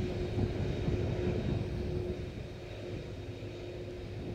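Boeing 767 airliner's jet engines running as it rolls down the runway after landing: a low rumble with a steady hum above it, loudest in the first second and a half and easing slightly after.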